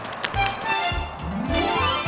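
Background music with a steady beat, about four beats a second; in the second half a note slides steadily upward in pitch.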